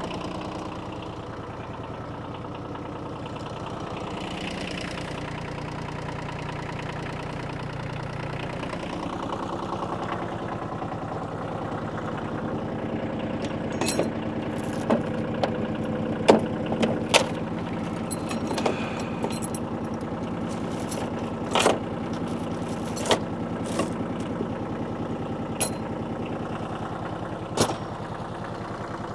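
New Holland tractor engine idling steadily. From about halfway through, a series of sharp clicks and knocks is heard over it.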